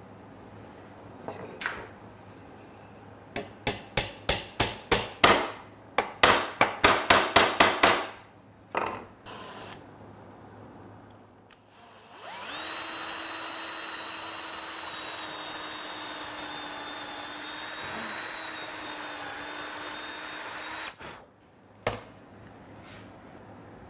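A run of about fifteen sharp taps, roughly three a second, then a cordless drill running steadily for about eight seconds. The drill is boring a 1/8-inch pin hole into ash, and it stops abruptly.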